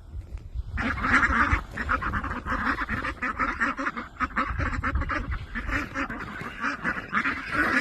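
A flock of domestic ducks quacking, many rapid calls overlapping in a continuous clamour that starts about a second in.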